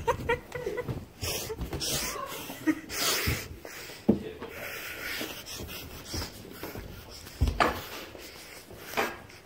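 Heavy, hissing breaths and handling rustle with scattered dull thumps of footsteps as someone hurries down carpeted stairs.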